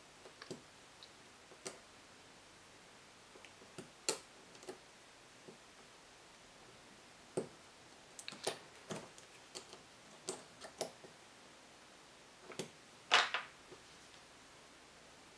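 Scattered light clicks and taps of small tools and metal parts being handled while working on a model nitro engine, the loudest a short clatter near the end.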